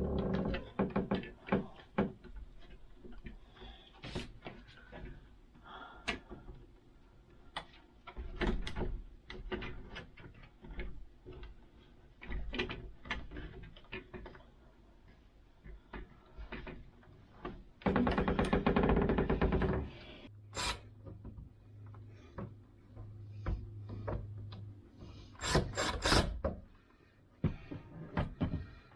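Scattered knocks, taps and clicks of a door-knob drilling jig being handled and shifted against a wooden door. About two-thirds of the way through comes a louder rough noise lasting about two seconds.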